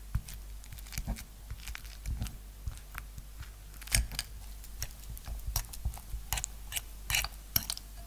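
Metal fork mashing ripe banana pieces in a glass bowl: soft squishing with irregular sharp clicks and scrapes as the tines strike the glass, the loudest about four seconds in and again near the end.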